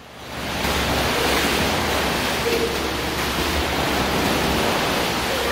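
Two swimmers racing across a pool, kicking and stroking hard: a steady, churning splash of water that swells up in the first half second.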